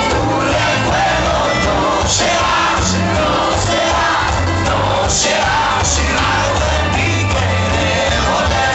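Loud music with singing over a heavy bass.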